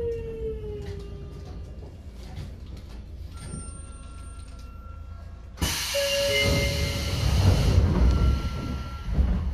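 Sotetsu 8000 series electric train's Hitachi IGBT VVVF inverter whine falling in pitch as the train slows, over low running rumble. About halfway through, a sudden loud hiss-like noise starts and carries on, with a few short steady tones over it.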